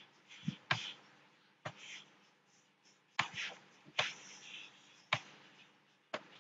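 About six sharp, separate clicks, roughly one a second, with faint breathy hiss between some of them.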